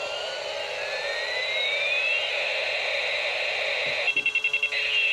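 Battery-operated toy helicopter playing its electronic siren-like sound effect, with rising wailing glides. About four seconds in there is a quick run of rapid beeps. A steady whir runs underneath, from the spinning rotor.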